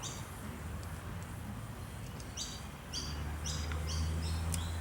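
A small bird chirping in a quick series of short, high notes from about halfway through, over a low steady hum.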